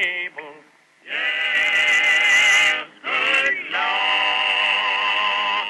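A small group of voices singing in close harmony. After a brief phrase and a short pause, they hold two long chords of about two seconds each, linked by a short sliding phrase.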